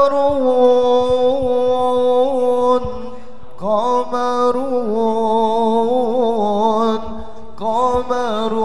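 A man chanting an Arabic devotional poem in long, drawn-out, ornamented notes. He sings three phrases, with short breaks about three seconds in and about seven seconds in.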